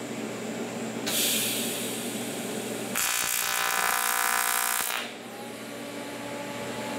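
AC TIG welding arc on aluminum sheet buzzing for about two seconds, with a hiss starting about a second before it. The arc is fusing a built-up filler gob to the upright piece to make a tack weld, and it cuts off suddenly.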